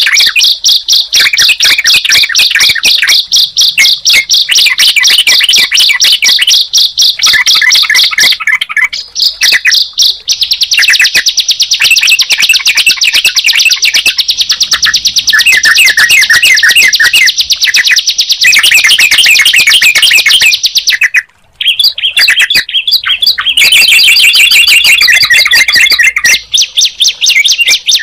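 Ciblek (bar-winged prinia) and trucukan (yellow-vented bulbul) songs layered together: loud, rapid, fast-repeated high chirping and trills with a brief break about 21 seconds in.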